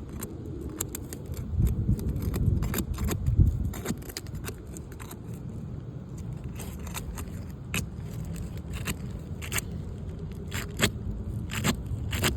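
Hand tools scraping and clicking against asphalt roof shingles while the shingles are being worked loose: an irregular run of short, sharp scrapes and ticks over a low rumble.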